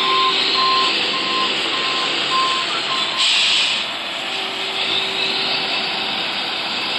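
Heavy machinery's backup alarm beeping about once a second over a running diesel engine. The beeping stops about three seconds in and is followed by a short hiss.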